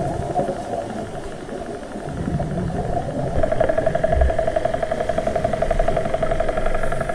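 A motor's steady, fast-pulsing drone heard underwater, growing louder about three and a half seconds in.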